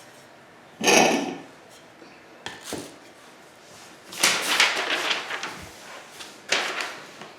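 Office chair parts and their packaging being handled and pulled apart: a sharp knock about a second in, then several scraping, rustling noises, the longest lasting over a second near the middle.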